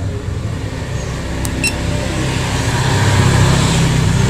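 A motor vehicle passing by on the road, its engine and tyre noise swelling to a peak a little over three seconds in and then easing off. Two short clicks sound about a second and a half in.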